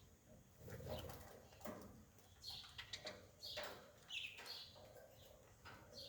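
Faint bird calls: short chirps repeating every half second or so, a few sliding down in pitch.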